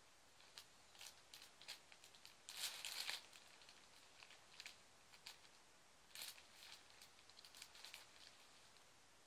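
A thin plastic carrier bag crinkles in short, irregular bursts as a kitten paws and rolls in it. The crinkling is loudest from about two and a half to three seconds in, with another run of crackles from about six to eight seconds.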